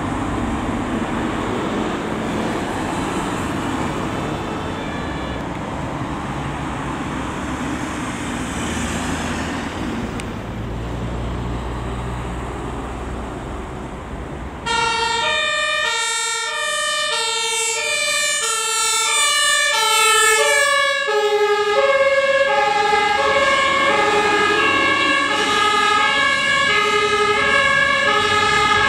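Traffic noise on a busy road with faint two-tone sirens, then loud German two-tone emergency horns (Martinshorn) from an emergency doctor's car and an ambulance, alternating high-low. From about halfway in one horn sounds, and a second horn joins out of step with it near the last third.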